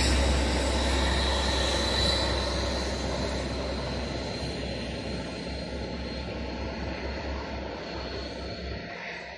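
Class 43 HST diesel power car pulling away from the station, a steady engine rumble with a thin high whine, fading gradually as it draws off.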